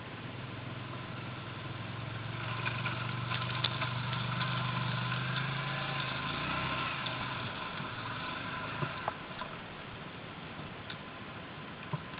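Quad (ATV) engine running steadily as the machine wades through an icy stream, breaking through the ice, with water splashing and churning over several seconds in the middle. The engine sound dies away at about seven and a half seconds, and a couple of sharp knocks follow.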